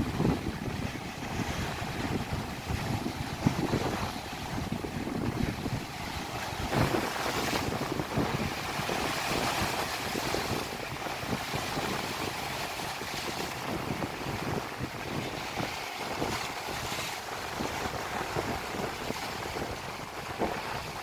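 Strong wind buffeting the microphone in uneven gusts over the steady rush of wind-driven waves on a lake.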